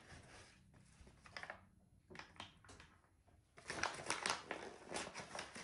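A spoon digging into a paper flour bag, the stiff paper crinkling and rustling and the spoon scraping through the flour, in irregular bursts that get busier in the second half.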